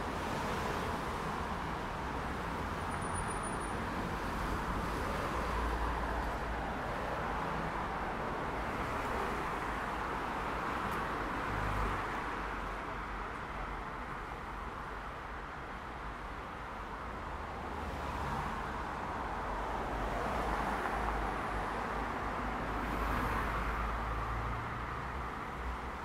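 Road traffic: a steady wash of cars on the road over a low rumble, with several vehicles passing in turn, each swelling and fading over a few seconds.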